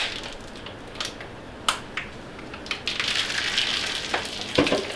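Aluminium beer can being shotgunned: sharp clicks and crinkling of the thin metal can in the hands and at the mouth, then a hiss of beer rushing out from about three seconds in.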